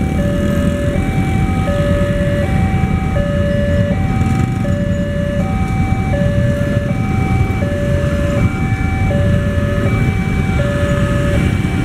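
Indonesian railroad level-crossing warning alarm sounding from its loudspeaker: a two-note electronic tone alternating high and low, about one pair every second and a half, warning that a train is approaching and the crossing is closed. The rumble of passing motorcycle engines runs beneath it.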